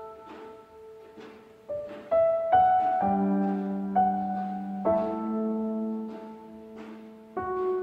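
Background piano music: a slow piece of struck notes and held chords, with deeper bass chords coming in about three seconds in and again near the five-second mark.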